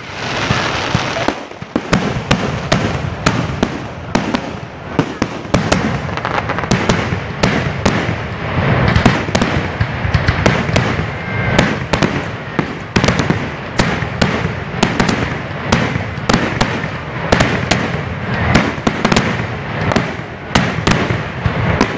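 Fireworks display: aerial shells and comets going off in quick succession, dozens of sharp bangs and crackles over a continuous rush of noise.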